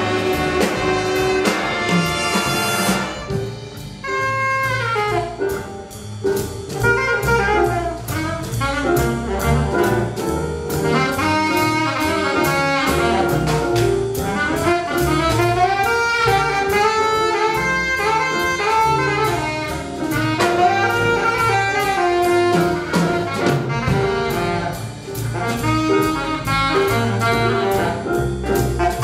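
A jazz ensemble playing: the horn section plays loud sustained chords for the first few seconds, then a saxophone carries a bending melodic line over bass and drum kit, with cymbals keeping time.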